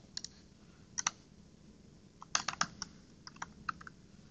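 Typing on a computer keyboard: scattered, irregular keystrokes with a quick flurry of taps about two and a half seconds in.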